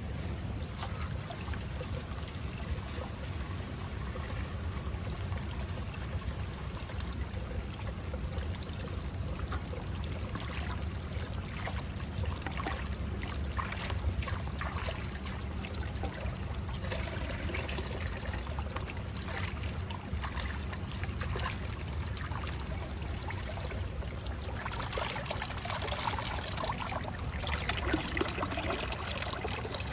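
Running water trickling and splashing steadily over a low rumble, growing brighter near the end.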